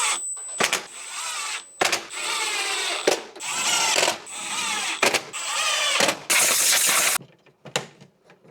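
A handheld power drill run in a string of short bursts, about eight in all, its motor pitch rising and falling with each squeeze of the trigger over a steady high whine. The last burst, near the end, is a harsher hiss.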